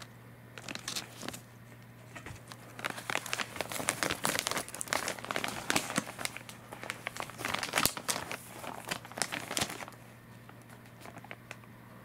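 Crinkling of a plastic package of rawhide dog chews as it is handled, in irregular bursts of sharp crackles starting about half a second in, busiest through the middle and thinning out near the end.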